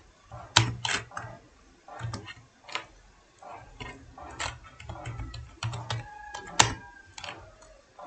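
Computer keyboard keys clicking at an uneven pace as text is typed slowly, a few keystrokes at a time.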